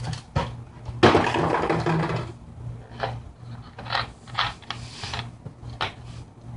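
Hiss of a plastic two-liter Pepsi bottle being unscrewed, about a second in and lasting about a second as the gas escapes, followed by several short clicks and knocks of plastic bottles being handled.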